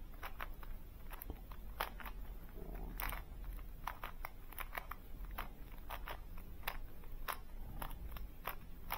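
Plastic clicks and clacks of a GAN 3x3 smart cube's layers being turned by hand, quick irregular turns about two or three a second, as the cube is scrambled for the next round.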